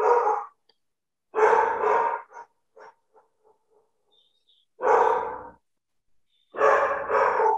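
A dog barking in four short runs, most of them two barks close together, with a few faint short yips between the second and third runs.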